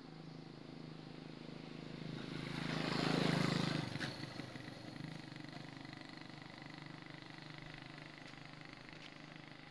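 A motor vehicle passing: an engine hum and rushing noise swell to a peak about three seconds in and fade away, over a steady low hum.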